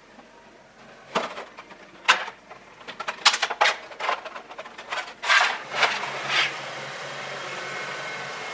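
A series of irregular sharp clicks and knocks, then a steady mechanical hum that sets in about six seconds in.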